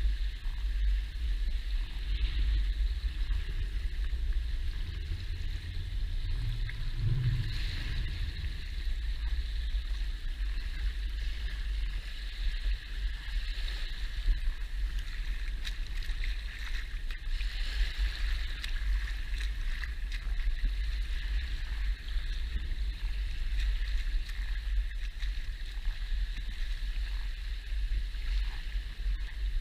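Shallow lagoon water lapping and washing over sand at the water's edge, with a constant low rumble and a steady hiss.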